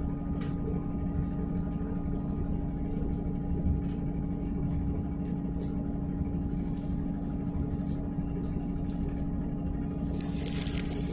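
Steady running noise inside a train carriage: a low rumble with a constant hum of several steady tones. A brief hiss rises near the end.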